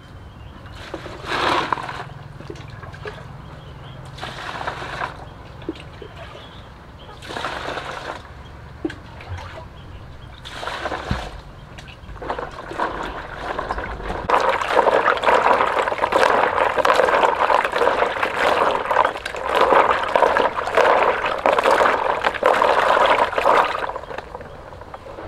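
Water scooped from a clay jar with a plastic dipper and poured into a plastic basin in short splashes, four times about three seconds apart, then about ten seconds of louder, continuous splashing of hands working in the basin water.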